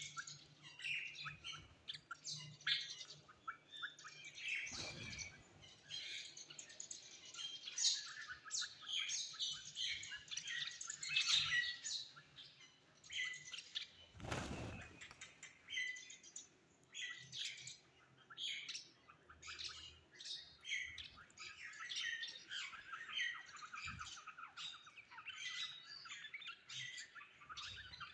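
Several birds chirping and calling over each other in quick, continuous short notes, with a couple of harsher squawks. Two brief rushes of noise cut across the calls, about five seconds in and again about fourteen seconds in.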